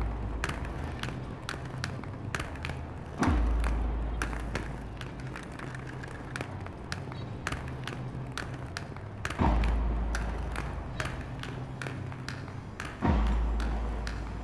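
Three deep booming thuds, each dying away slowly over a few seconds, over a steady low hum. In between comes a frequent light clicking and rattling of roller-skate wheels and bicycle tyres rolling over a tiled floor.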